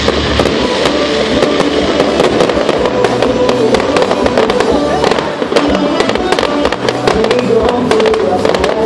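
Fireworks bursting and crackling many times in quick succession, over music playing with them.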